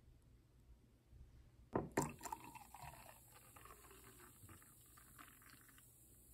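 Two sharp clicks, then liquid being poured into a glass, with a pitch sliding down and a run of small crackles.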